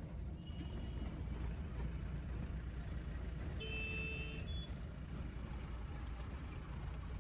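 Truck engine and road noise heard from inside the cab while driving, a steady low rumble. A brief high beep comes about half a second in, and a louder short horn honk a little under four seconds in.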